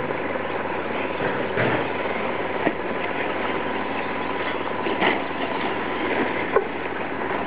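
Several brushless electric RC short course trucks racing on a dirt track: a steady mix of motor whine and tyre noise. A sharp knock comes about two and a half seconds in, and a louder one comes near the end.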